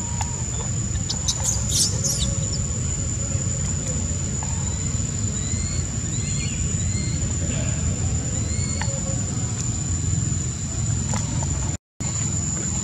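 Outdoor ambience: a steady high-pitched insect drone over a low rumble, with a few short rising chirps and some scattered clicks. The sound cuts out for a moment near the end.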